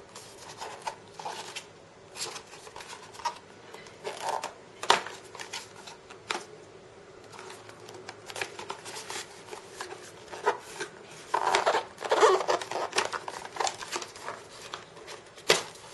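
Cardboard and plastic packaging being handled: scattered scrapes, rubs and clicks as a car speakerphone is eased out of its box insert, with a busier run of scraping near the end.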